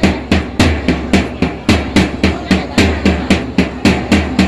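Drum beating a steady, even rhythm of about four strokes a second, loud and sharp, with a deep low thud under each stroke.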